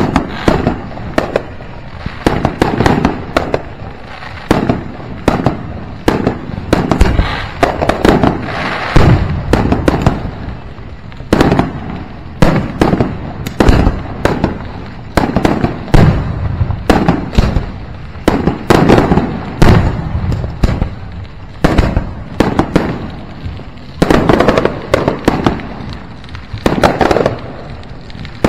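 Fireworks launched from the grass close by, going off in rapid volleys of loud, sharp bangs as shells burst low overhead, several bangs a second in each cluster with short lulls between.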